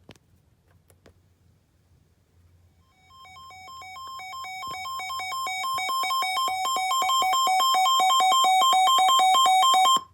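Weather radio's built-in alert alarm: a rapid, warbling two-tone electronic beep that grows steadily louder for about seven seconds and then cuts off abruptly, signalling that a new warning has been received. A few faint clicks come just before it.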